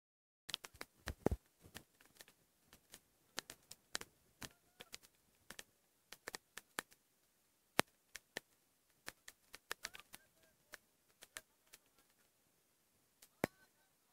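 Irregular sharp clicks and crackles, close to the microphone, at no steady rhythm, with faint distant voices in places.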